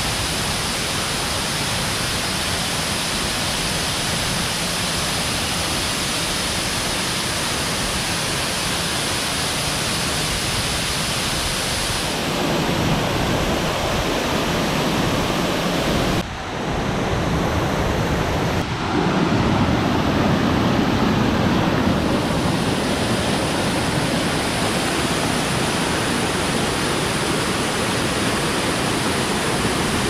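Waterfall: a loud, steady rush of falling water. Its tone shifts abruptly a few times, with a brief dip about 16 seconds in.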